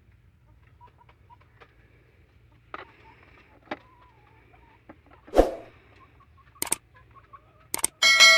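Chickens clucking softly amid scattered clicks and knocks, with a louder thump about five seconds in. Near the end comes a sharp metallic clang that rings on with a clear pitched tone.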